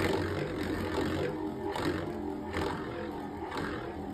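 Beyblade X spinning tops, DranSword 3-60 Flat among them, spinning in a plastic stadium: a steady whirring hum with a regular scraping tick roughly every two-thirds of a second as one top circles the outer rail and rubs the stadium wall.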